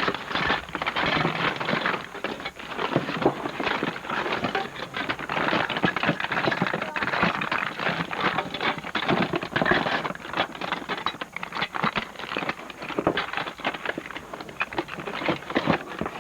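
Continuous rattling, clicking and rustling of small electronic parts and their packaging being handled and rummaged through in a box, with many irregular sharp clicks.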